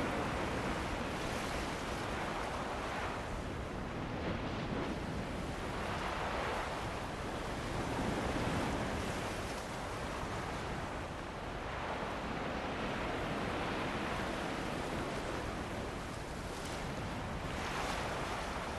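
Ocean surf washing onto a beach with wind blowing over it: a continuous rush that swells and eases every few seconds as waves come in.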